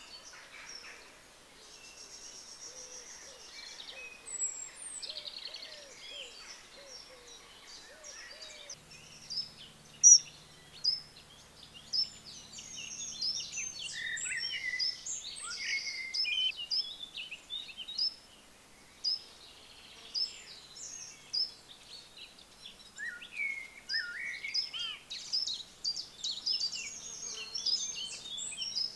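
Several songbirds singing and chirping, sparse at first and becoming a busy chorus from about twelve seconds in, with sharp loud chirps. A low steady hum comes in about nine seconds in.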